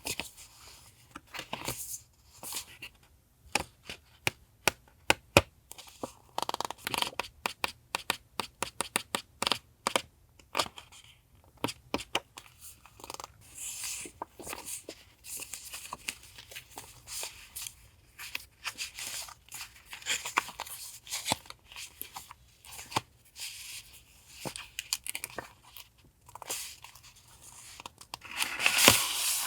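Paper stationery and its packaging handled close to the microphone: quick, irregular crinkling, rustling and light taps, with a louder rustling rush near the end.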